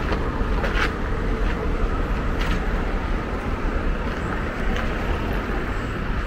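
Steady city road-traffic rumble, with faint scattered clicks on top.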